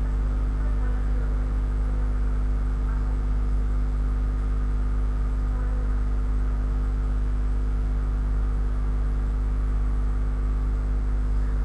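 Steady electrical mains hum: a low drone with a stack of overtones, unchanging throughout.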